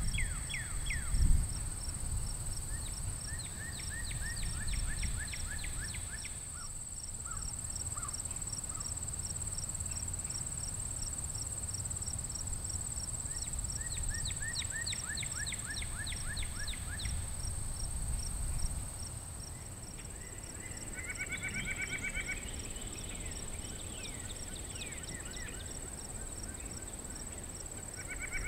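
Outdoor insect chorus: a steady high-pitched drone and a cricket chirping evenly about two or three times a second. Bursts of quick descending whistled notes from a bird come early on and again in the middle, over a low rumble.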